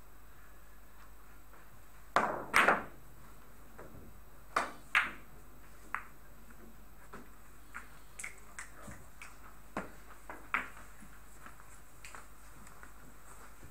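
Billiard balls being struck and colliding on a carom table. Two loud sharp clicks come about two seconds in as the cue ball is shot and hits another ball, two more around four and a half and five seconds, then fainter scattered ticks and knocks as the balls run on and come off the cushions.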